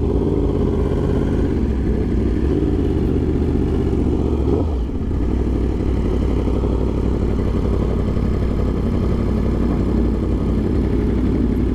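Motorcycle engine running at low speed under the rider, with a steady low rumble; the engine note changes a little under halfway through.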